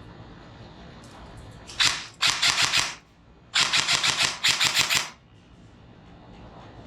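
Airsoft replica firing: a single shot, then three quick bursts of rapid cracking shots over about three seconds.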